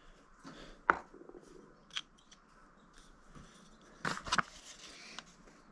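Small clicks and taps from pen-kit parts and a tube insertion tool being handled: a single click about a second in, another near two seconds, a short cluster of clicks around four seconds, and one more near five seconds.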